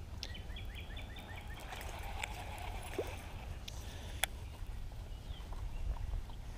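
Quiet outdoor lake ambience with a steady low rumble. A quick run of about eight short falling bird chirps comes near the start, and a single sharp click comes about four seconds in.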